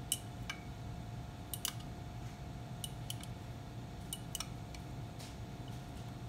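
Scattered light, irregular clicks and taps from a glass jar of sludge handled and tilted in gloved hands, over a steady electrical hum with a faint whine.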